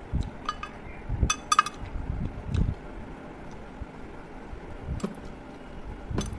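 Eating rice by hand from a metal plate: fingers and food give a few light clinks against the plate, with soft chewing and mouth sounds in between.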